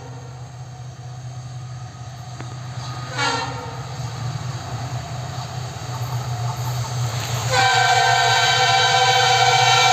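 WDP-4 diesel-electric locomotive (EMD 16-cylinder two-stroke engine) running with a steady low drone that grows louder. It gives a short horn blast about three seconds in, then a long, loud horn blast starting about three-quarters of the way through.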